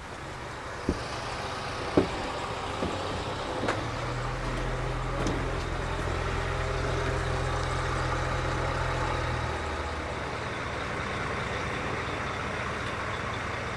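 A few sharp knocks of footsteps on the boat's deck in the first four seconds, then a steady low engine hum from about four seconds in that drops away after about nine and a half seconds, over a steady rushing background noise.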